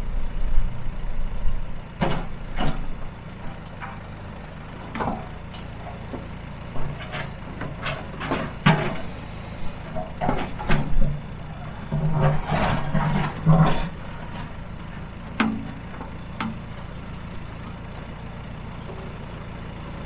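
John Deere 310A backhoe engine running steadily while its bucket digs into rock, with irregular sharp clanks and short grinding scrapes of steel on stone.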